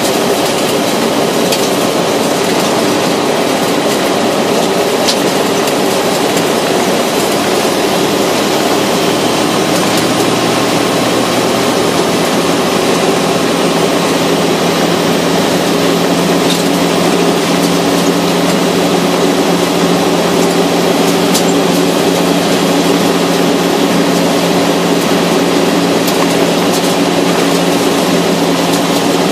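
Vehicle driving on a gravel road: a steady rumble of tyres on loose gravel with engine noise, and a few sharp ticks scattered through it.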